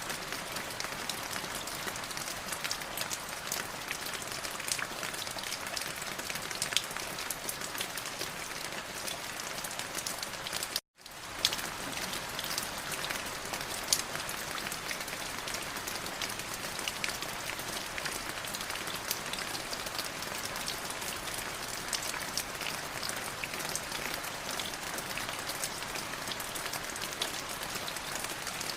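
Light drizzling rain falling steadily, a fine hiss with many small individual drops ticking through it. About eleven seconds in, the sound cuts out completely for a split second, then resumes.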